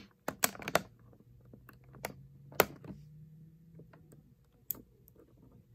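Small scissors snipping the ties that fasten an action figure into its clear plastic packaging tray: a handful of short, sharp snips and clicks, the loudest about two and a half seconds in, with the tray being handled between them.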